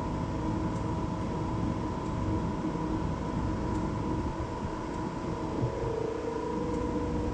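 Steady drone of a ship's engine-room machinery, with running diesel generators and ventilation, heard in the engine control room. A low rumble runs under a steady high tone, evenly throughout.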